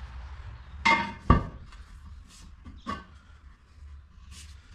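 Metal clanks of a hammer and tire iron working on a wheel rim as a truck tire is mounted by hand: two loud strikes close together about a second in, another near three seconds, and a few fainter ticks.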